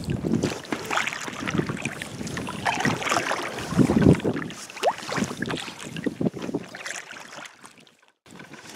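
Kayak paddles dipping and splashing in the water beside an Intex Explorer inflatable kayak, with wind on the microphone. The sound fades out near the end.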